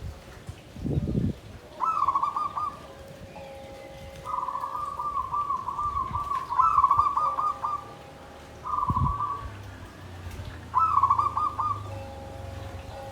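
Zebra doves (perkutut) cooing: repeated short phrases of fast rolling notes, several of them overlapping, every two to three seconds. A low thump comes about a second in and another around nine seconds.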